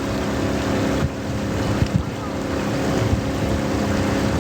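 Small boat engine running steadily as a motorised bamboo raft travels along the river, with wind noise over it.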